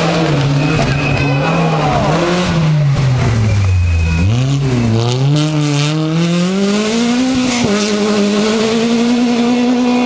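Opel rally car engine revving hard through a slide, the pitch rising and falling with the throttle, then climbing steadily as the car accelerates away, with a shift about three quarters of the way through. Tyres squeal as the wheels spin.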